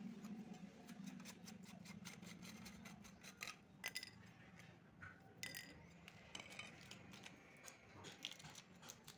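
Faint scattered clicks and light ticks of small parts being handled by hand, over a low steady hum.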